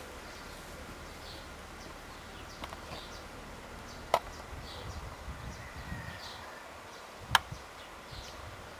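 Quiet open-field ambience with faint, short high chirps every second or so, and two sharp knocks: one about four seconds in and a louder one about seven seconds in.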